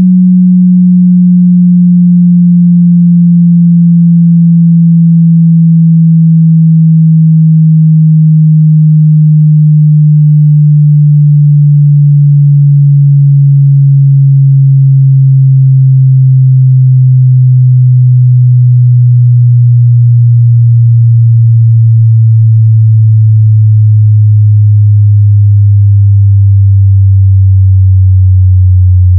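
Pure sine test tone sinking slowly in pitch, loud and steady, dipping briefly about every five seconds. It is a headphone bass-extension test signal stepping down from 200 Hz toward the low limit of hearing.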